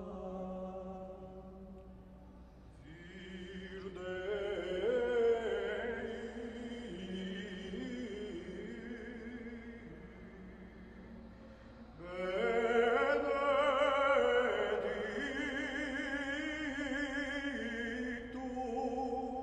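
Choir of Benedictine monks singing a liturgical Alleluia chant in long held notes. The singing swells about four seconds in and comes in louder and fuller with more voices about twelve seconds in.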